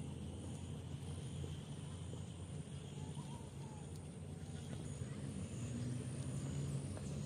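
Outdoor ambience by a lake: a steady low rumble with faint high chirps about three seconds in.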